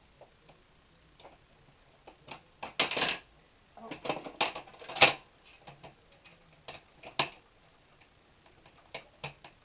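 Hand screwdriver driving the screws that hold a fire alarm pull station to its back box: irregular clicks and short scraping bursts, with a sharp knock about five seconds in.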